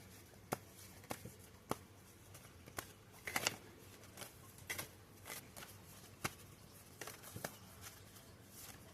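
Oracle cards being shuffled and handled: scattered light card snaps, with a brief rustle about three seconds in.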